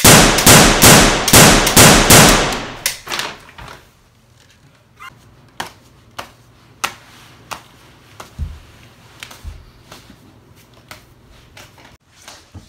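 Pistol gunfire: a rapid string of loud shots over roughly the first three seconds, dying away. A few scattered soft clicks and knocks follow.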